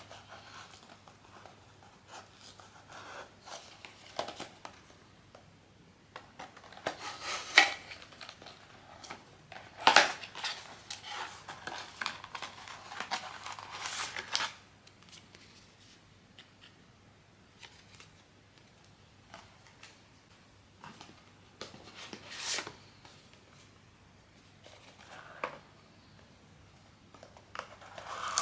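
Blind-box packaging being cut open and handled: cutting and rustling in bursts, busiest through the middle, then a few scattered clicks and taps.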